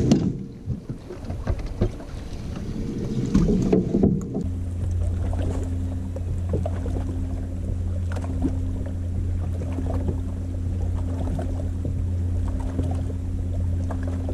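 Steady low hum of a small electric motor on a bass boat, its pitch pattern shifting about four and a half seconds in. Knocks and handling clatter in the first four seconds.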